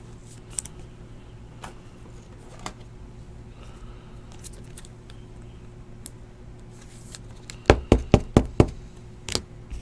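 Trading cards and a plastic card holder being handled on a tabletop: faint small clicks, then a quick run of about five sharp knocks on the table near the end and one more just after.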